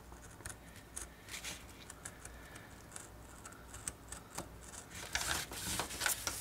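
Hobby knife blade slicing through a printed paper sheet on a wooden cutting board, in a series of short scratchy strokes that grow louder and closer together near the end.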